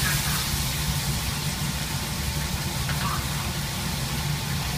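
Fish in a thick red sauce simmering and sizzling in a wok over an open flame: a steady hiss over a low rumble.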